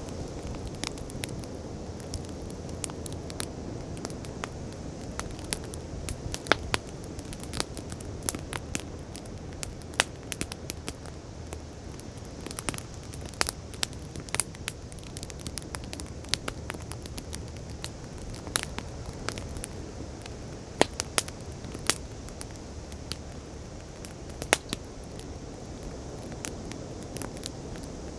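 Wood campfire crackling, with many irregular sharp pops and snaps over a steady low rush of noise.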